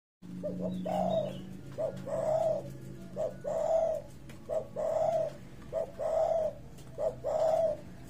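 A silver-coloured spotted dove (terkukur) cooing in a steady series. Each call is a short note followed by a longer coo, and the call repeats six times, about one every second and a quarter.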